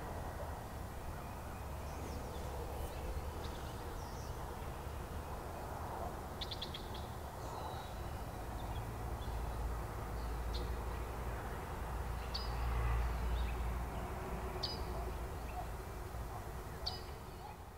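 Outdoor ambience: birds chirping, with a short high call about every two seconds in the second half, over a low rumble that swells around the middle.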